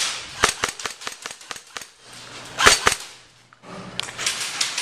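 Air-powered game guns firing in quick volleys of sharp cracks. A loud cluster comes at the start and another about two and a half seconds in, with a rapid run of shots near the end.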